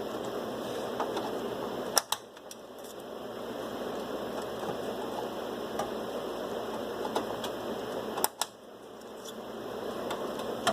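RAM sticks being pressed into an HP Z420 workstation's memory slots, the clips at each end snapping shut in pairs of sharp clicks: two clicks about two seconds in and two more about eight seconds in, the sign that each stick is fully seated. A few faint ticks and a steady low hiss lie underneath.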